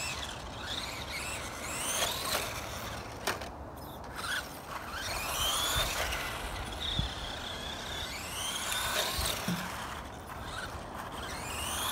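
Electric motor of a Dromida SC4.18 1/18-scale RC short course truck whining up in pitch in repeated bursts as the throttle is applied, with a few short knocks.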